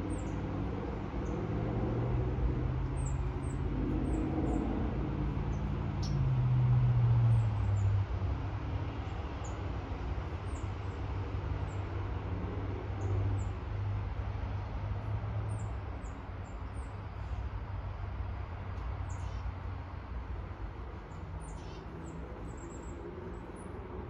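Small birds chirping: many short, high chirps and a few falling calls, over a low engine drone that swells about six to eight seconds in and then eases off.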